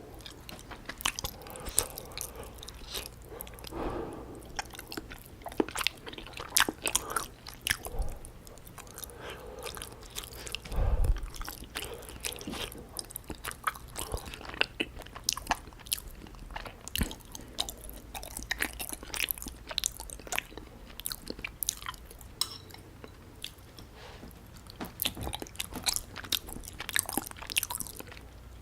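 Close-miked chewing of a syrup-soaked gulab jamun: sticky, wet mouth sounds with many small clicks, and a dull thump about eleven seconds in.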